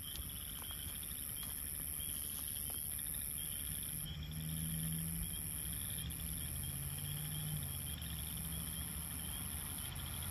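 Steady chorus of night insects chirring in a pulsing rhythm, over the low hum of a vehicle engine idling.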